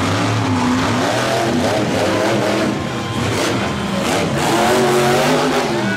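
Monster truck engines revving hard, their pitch rising and falling again and again as the trucks throttle around the dirt arena.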